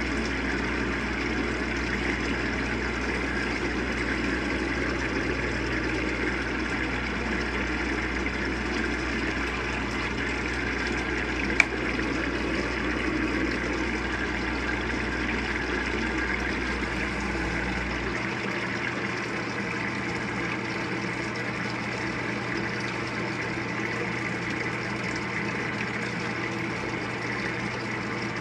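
Avanti top-load washing machine filling: water streams steadily into the sudsy tub, with a low machine hum underneath that stops about two-thirds of the way through. A single sharp click sounds a little before the middle.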